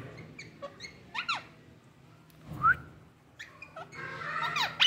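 Pet rose-ringed parakeet calling in short whistled, swooping notes: a few about a second in, a single loud rising note near the middle, and a quicker run of chattering notes near the end.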